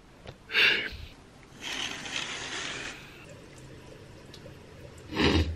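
A man yawning: a short loud breathy burst about half a second in, a longer hissing breath after it, and another breathy burst near the end.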